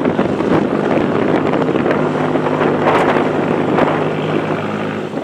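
A boat engine running, its steady low hum coming through clearly from about two seconds in, under wind buffeting the microphone.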